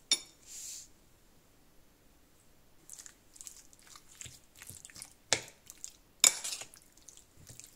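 A metal spoon mixing raw chicken pieces with soy sauce in a ceramic bowl: wet squishing with the spoon clicking against the bowl, and two sharper knocks of spoon on bowl about five and six seconds in. A sharp click opens it.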